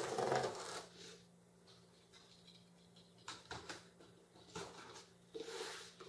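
Box cutter slitting the packing tape on a cardboard box, a rasping scrape in the first second. Then the cardboard box is handled and turned, with a few light taps and brushing rustles.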